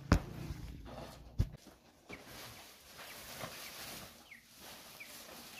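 Two sharp knocks, then the rustle of heavy tent cloth being handled and shaken out, with a few faint short chirps from an animal.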